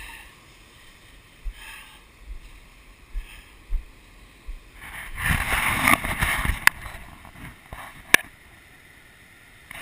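Large surf breaking against shoreline rocks: a low wash of water, then a loud rushing crash about five seconds in that lasts around two seconds. Two sharp clicks come near the end of the crash.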